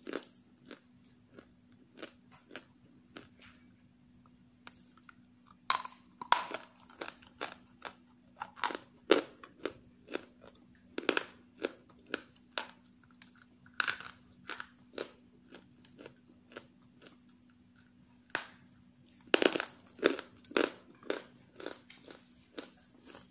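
Half-roasted grey clay being bitten and chewed close to the microphone: an uneven run of sharp, dry crunches and crackles, some much louder than others.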